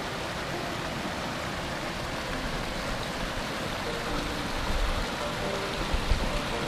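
Small mountain stream rushing steadily over rocks, with a few low thumps a little past the middle.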